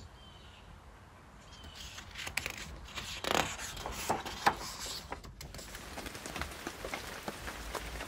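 A paper page of a picture book being turned, with soft rustling and handling taps. Under it, a quiet, even hiss rises in about a second and a half in and holds steady.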